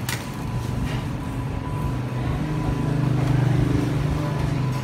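A motor vehicle's engine running as a low hum that swells louder around the middle and eases off near the end.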